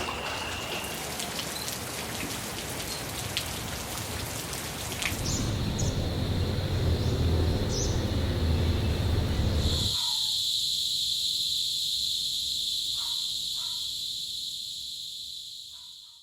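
A run of outdoor ambience recordings. First a steady, even hiss of rain. About five seconds in, a low rumble joins with a steady high-pitched buzz; a few seconds later the rumble drops away, leaving the high buzz alone until it fades out near the end.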